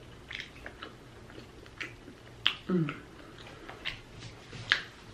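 Close-up mouth smacking and wet clicks of someone chewing food, irregular, with a short hummed "mm" falling in pitch about two and a half seconds in.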